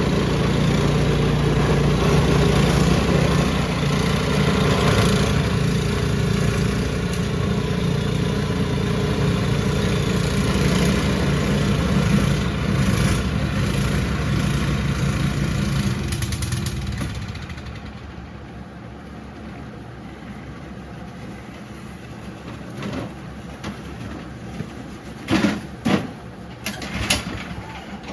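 Powermate 208cc overhead-valve single-cylinder snowblower engine running steadily, then stopping about 17 seconds in and winding down. A few sharp knocks follow near the end.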